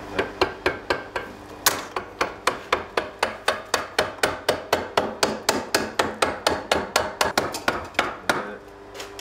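Hand hammer beating the red-hot ball on the end of a steel quillon clamped in a vise, rounding it. Quick, even blows about four a second, stopping near the end.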